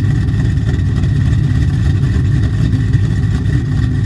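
A 2009 Dodge Challenger SRT8's 6.1-litre Hemi V8, fitted with a custom-grind cam and long-tube headers, running steadily with a loud, deep exhaust note.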